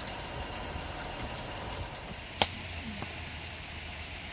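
Pot of water at a rolling boil on a portable gas stove, a steady hiss with a low rumble. One sharp tap sounds about two and a half seconds in.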